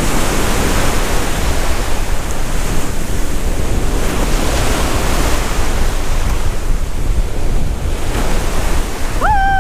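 Ocean surf breaking and foaming up the beach at the water's edge, a steady wash with wind buffeting the microphone. A person whoops once near the end.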